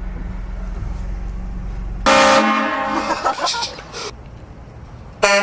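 Vehicle-mounted air train horn blasting a loud chord of several tones at once, starting suddenly about two seconds in and lasting about two seconds; a second blast begins right at the end. A low steady hum runs underneath before the first blast.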